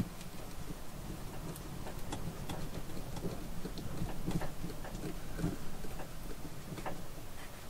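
Hand screwdriver driving a screw through a plastic smoke alarm mounting base into the ceiling: a scattered, irregular run of small clicks and creaks as the screw is turned.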